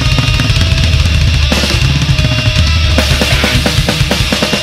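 Thrash/groove metal recording: distorted guitars and bass over a drum kit, with rapid drum hits through the second half.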